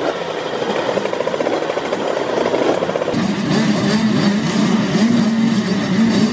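A line of youth motocross bikes running and revving together on the start line, many engine notes overlapping and wavering up and down.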